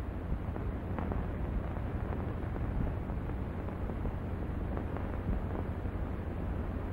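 Steady hiss and low hum of an old optical film soundtrack, with a few faint crackles and pops; no dialogue, music or distinct sound effect.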